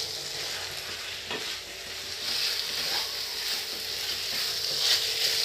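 Chilli paneer in a thick masala sauce frying in a non-stick pan, sizzling steadily, with a wooden spatula stirring and scraping through it and a few light clicks against the pan.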